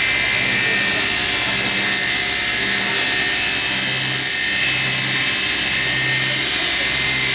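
Double-spindle multi-blade ripsaw with 355 mm circular blades ripping a timber lengthwise as the roller feed carries it through: a steady high-pitched whine and hiss of the blades in the wood, with a low hum that swells and fades about once a second.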